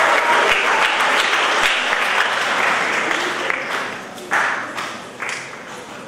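Audience applauding, dying down over a few seconds to a few scattered last claps.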